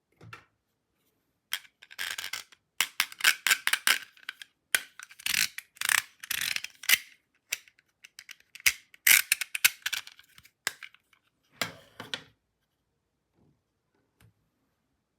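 Small plastic toy parts being handled: a dense run of sharp clicks, rattles and short scrapes for about ten seconds, starting a second and a half in.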